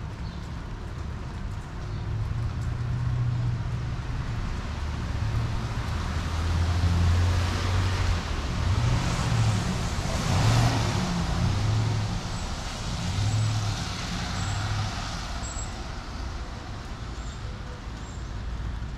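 Street traffic: a low engine hum throughout, and a vehicle passing close by about ten seconds in, its tyres hissing on the wet road as it swells and fades.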